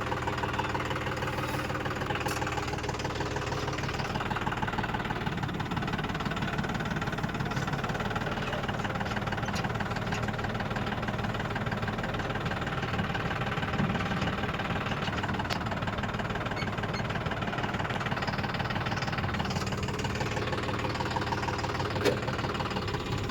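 A diesel engine running steadily at an even speed, with a few faint clicks over it.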